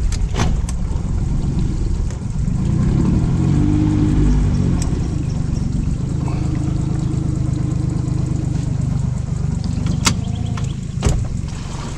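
Small boat's outboard motor running, its pitch rising and falling about three seconds in, then holding steady, with a few sharp knocks near the start and near the end.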